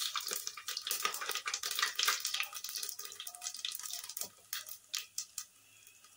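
Whole spices (cumin seeds, black pepper and cloves) sizzling and crackling in hot oil in a pressure cooker, a dense spitting that thins out to a few scattered pops about four and a half seconds in.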